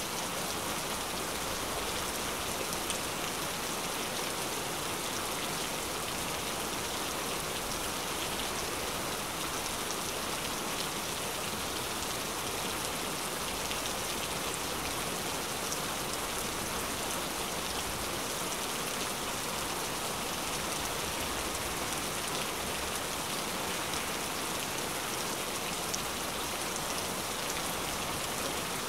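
Steady rain falling: an even, unbroken hiss with faint scattered drop taps.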